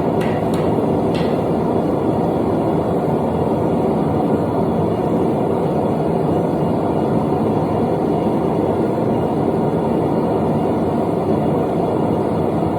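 Steady, even roar of a running blacksmith's forge (burner or air blower), with a few light metallic clicks in the first second.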